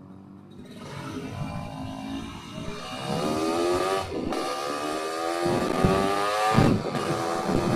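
Yamaha RX-King two-stroke motorcycle engine, breathing through an aftermarket underbody exhaust, pulling hard under acceleration. Its pitch climbs steadily, broken by two short dips at gear changes about four and about six and a half seconds in.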